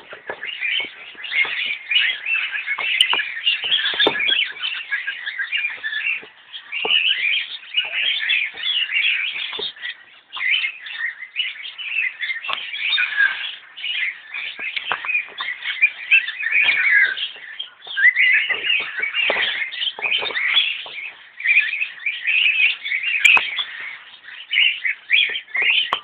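A flock of caged aviary birds chirping and chattering all at once, many short high calls overlapping in a constant din.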